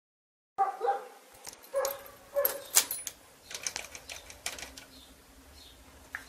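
Clicks, knocks and a few short squeaks from handling around a BJR F5000 tractor's seat and controls, with the ignition switched on and the engine not yet running; a faint steady hum sets in about two-thirds of the way through.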